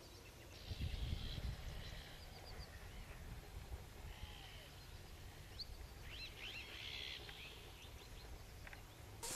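Faint open-country ambience with small birds chirping and whistling on and off, and a low rumble about a second in.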